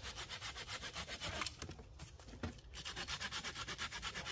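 Silky Gomboy folding pull saw cutting through a dead branch in quick, even rasping strokes. The strokes pause for about a second in the middle, then start again.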